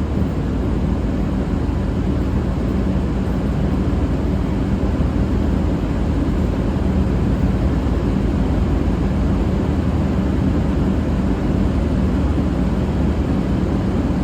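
V/Line Vlocity diesel railcars idling at the platform: a steady engine drone with a constant low hum.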